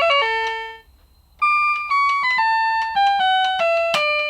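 Casio PT-87 monophonic keyboard playing single tinny notes through its built-in speaker, one at a time in stepwise runs. A run ends a little under a second in, and after a short pause a descending scale of about eight notes follows.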